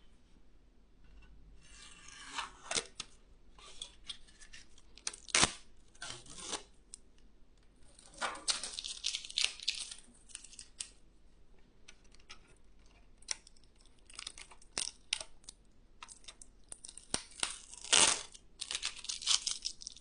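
Packaging being handled: plastic wrapping rustling and crinkling in several bursts, with sharp clicks and knocks in between.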